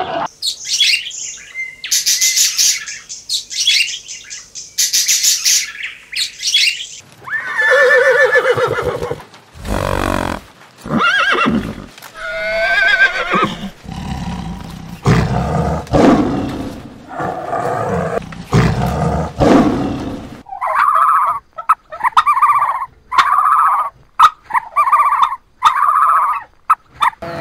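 A series of different animal calls. Shrill, high-pitched calls come first, then deeper, rumbling roar-like calls in the middle, then about seven evenly spaced calls, roughly one a second, near the end.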